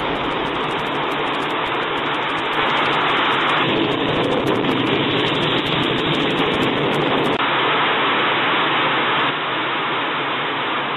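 An engine running with a steady rushing noise and no clear tone, jumping abruptly in level and character a few times.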